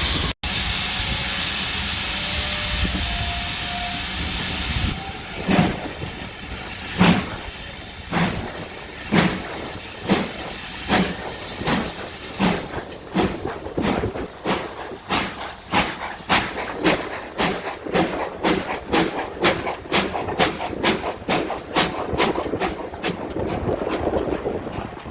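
Steam locomotive pulling away: a steady hiss of steam, then exhaust beats from the chimney start about five seconds in, slow at first and quickening to several a second as it gathers speed.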